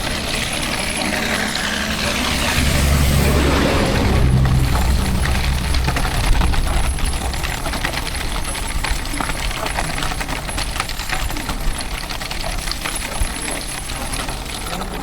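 Steel ball-bearing wheels of a wooden firewood cart rolling fast down a paved slope, a dense, continuous metallic rattle and clatter. A deeper rumble swells and fades within the first five seconds.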